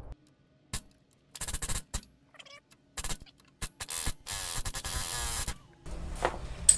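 Pneumatic air hammer firing in several short bursts, then one longer run of about a second, driving a pressed-in heater hose fitting out of an LS engine's water pump.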